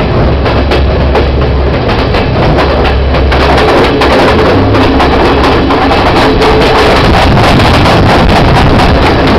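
Passenger train running at speed, heard loud from an open carriage window: a steady low rumble with rapid clatter of the wheels on the rails, and wind buffeting the microphone.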